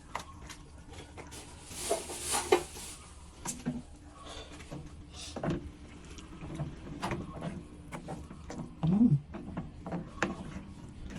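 Kitchen clatter: scattered knocks and clicks of utensils against pans and dishes, with a brief hiss about two seconds in and a few short vocal sounds.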